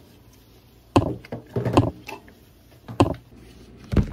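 A handful of sharp knocks or thumps on wood, irregularly spaced, about four in a few seconds.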